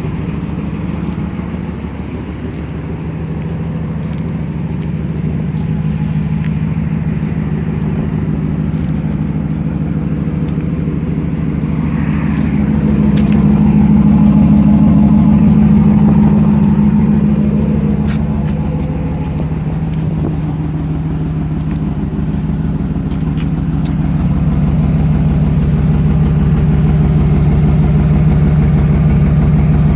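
2008 GMC Sierra Denali's 6.2 L L92 V8 running, heard through an exhaust with a leak just ahead of the secondary catalytic converter and the resonator deleted. The steady engine note swells gently about halfway through and again near the end.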